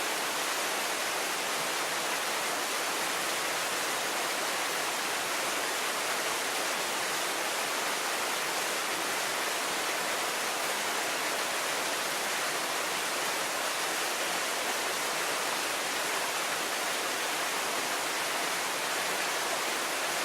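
A small waterfall, about four metres high, splashing steadily: an even, unbroken rush of falling water.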